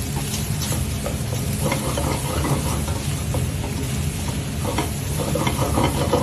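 Prawn heads and small Norway lobsters sizzling in hot oil with a brunoise of carrot, onion, leek and garlic in a pot, being stirred, with light scrapes and clicks of the utensil against the pot.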